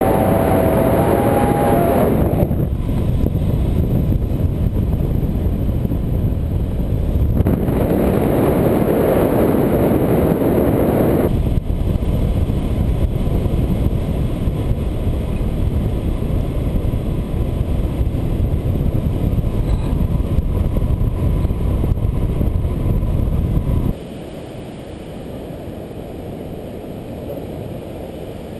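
Wind rushing over an action camera's microphone on a paraglider in flight: a loud, steady, low rumble of buffeting that drops in level near the end.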